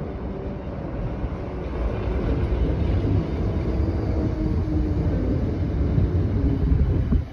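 Train running at the station: a loud, low rumble that grows louder about two seconds in, with a few faint steady tones above it, then drops off suddenly near the end.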